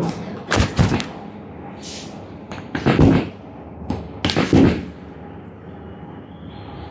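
Sudden thumps and knocks from a chiropractic back adjustment on a treatment table: a pair within the first second, one about three seconds in, and two more a little after four seconds.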